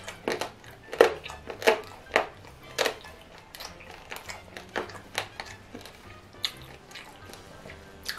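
Close-miked chewing of pork belly with crunchy rib cartilage: sharp, wet crunches about two a second, loudest in the first three seconds and softer after, over quiet background music.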